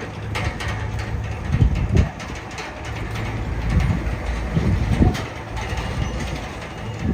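Crawler bulldozer's diesel engine running with its steel tracks clanking and rattling, and a few louder knocks about two seconds in and again about five seconds in.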